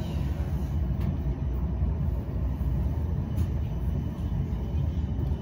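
Steady low rumble inside a Siemens Avanto tram-train rolling on the rails, with a couple of faint clicks.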